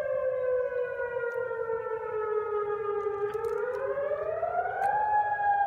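Tsunami warning siren sounding a test: a loud, steady wail whose pitch slowly sinks, then rises again from about three seconds in and levels off near the end.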